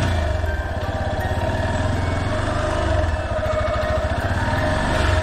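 Yamaha Serow 250's single-cylinder four-stroke engine running at low revs as the motorcycle rides along. The revs drop as it begins, then hold steady.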